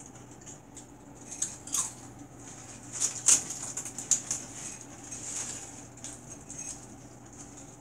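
Dry potato chips crackling and crunching in a tub heaped with them, in irregular sharp crackles that cluster about a second and a half in and again from about three seconds, loudest around three seconds in.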